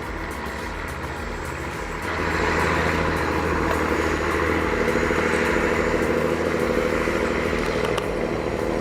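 Diesel engine of a Peterbilt 359 log truck, loaded with logs, straining up a steep grade. It runs steadily and grows louder about two seconds in.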